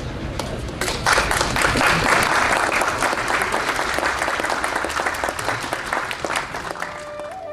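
Crowd applauding. The clapping starts about a second in and thins out toward the end, when a flute comes in on a held note that steps up in pitch.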